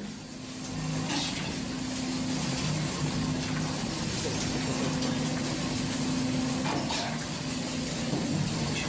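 Steady drone of a fishing vessel's engine and deck machinery with a rush of running water, broken by a couple of sharp knocks, one about a second in and one near the end.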